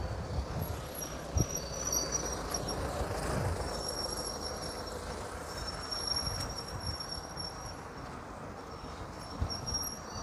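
Roadside traffic noise as a minibus and other vehicles go by, rising a little about a second in and easing after four seconds. Over it, a thin high-pitched shrill comes and goes again and again, with a few dull low thumps.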